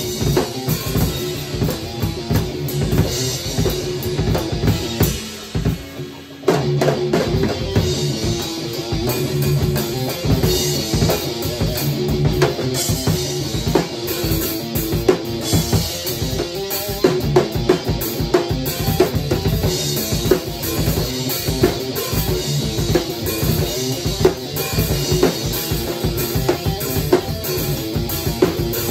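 Drum kit and electric guitar jamming: a steady beat on kick drum, snare and cymbals under electric guitar. The music drops back briefly about six seconds in, then comes straight back in.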